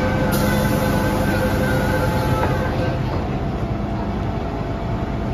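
An MTR M-train's sliding passenger doors closing at the platform. A steady door-closing warning tone sounds and stops about three seconds in, over the low hum of the standing train.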